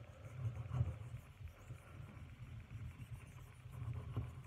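Knife blade drawn in light strokes across a small fine-grit (10,000) whetstone to clean off a slight burr: faint, uneven rubbing with a couple of soft knocks.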